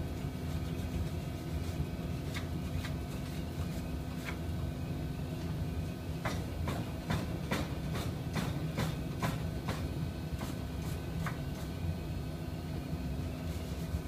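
Steady hum of workshop machinery with a run of sharp metallic clicks and scrapes as a lab mixer's metal mixing bowl is cleaned out by hand. The clicks come quickest through the middle stretch.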